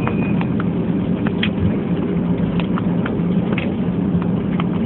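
Airliner cabin noise: a steady low drone of engines and airflow, with irregular knocks and rattles from the cabin as the aircraft rolls along near the runway.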